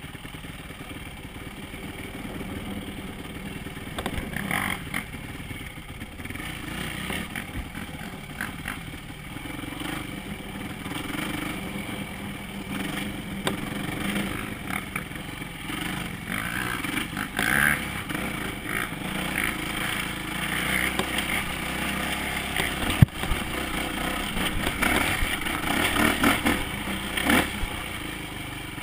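Dirt bike engine running and revving up and down as the bike rides over a rough dirt trail, with rattles and knocks from the bike over bumps. One sharp knock comes about two-thirds of the way through, and the engine gets louder toward the end.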